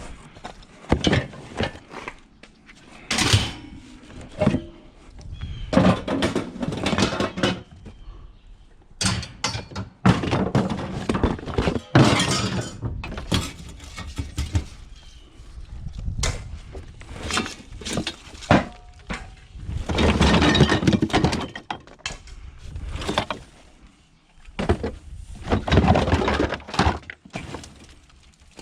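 Junk being handled and shifted by hand in a scrap pile: irregular knocks, clatters and crunching, some loud.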